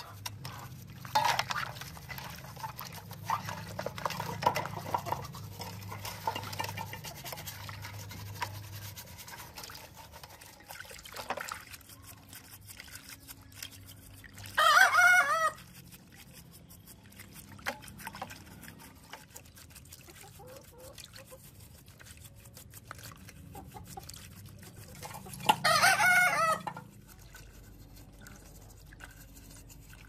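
A small brush scrubbing model-car parts in a basin of soapy water, with scratchy swishing and light splashing, busiest in the first third. A rooster crows twice, once about halfway through and once near the end; the crows are the loudest sounds.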